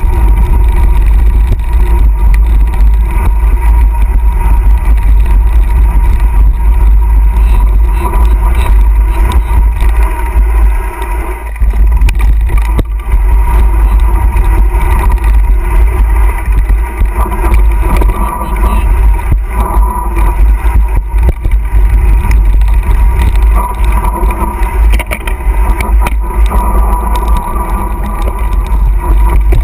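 Loud, steady wind buffeting on the microphone of a camera carried by a mountain biker riding down a rough dirt trail, mixed with the bike's knocking and rattling over the ground.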